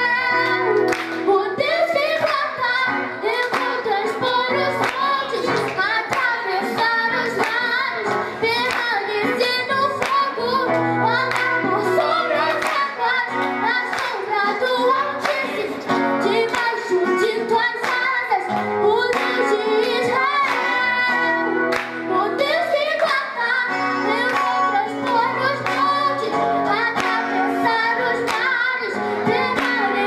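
A girl singing a Portuguese-language gospel worship song into a microphone, accompanied by acoustic guitar.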